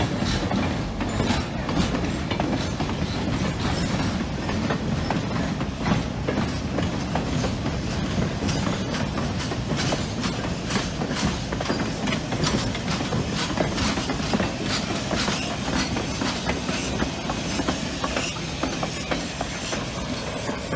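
A passenger train of wooden coaches behind a replica 4-4-0 steam locomotive rolls past close by. Its wheels click steadily over the rail joints over a continuous rumble.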